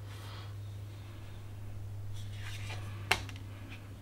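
Oracle cards being handled: soft sliding and rustling of card stock, then a single sharp tap about three seconds in as a card is set down on the deck, followed by a few light ticks.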